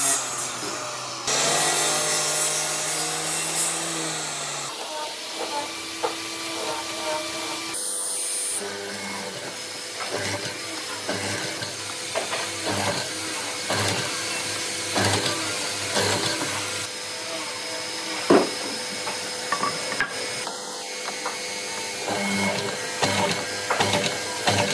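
Woodworking shop sounds: a power tool motor runs steadily for the first four or five seconds and stops, followed by irregular knocks and taps on wood.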